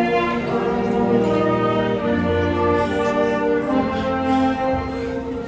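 Slow ensemble music with held chords that change every second or two.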